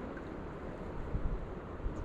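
Steady rushing noise of river water and falling rain, with wind buffeting the microphone in low gusts a little after a second in and again near the end.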